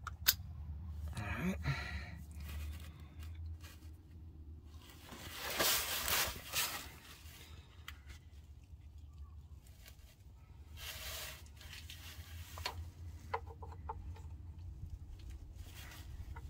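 Hands working a crankshaft position sensor and its gasket into its bore: scattered small clicks and two spells of rustling, over a low steady hum.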